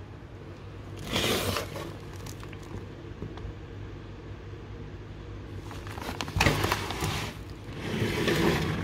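Foil bag crinkling as it is handled and set down on a workbench, in three bursts, the middle one with a sharp knock, over a steady low hum.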